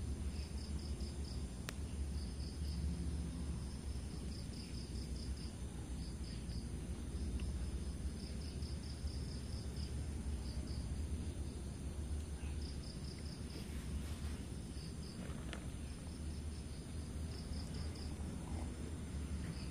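Night insects chirping in short, rapid pulsed trills that repeat every second or two, over a steady low rumble, with a couple of faint clicks.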